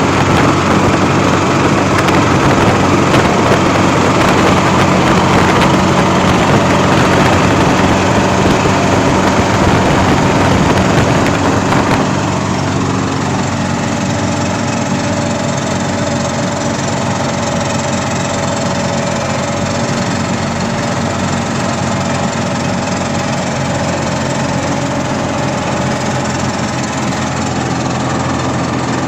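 Kirovets K-701 tractor's diesel engine running steadily. About twelve seconds in it settles to a slightly quieter, smoother note.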